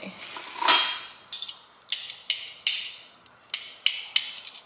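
Plastic-wrapped kitchen utensils knocking and clinking against a stainless steel utensil holder as they are pulled out. A louder knock comes about half a second in, then about eight short, sharp clinks.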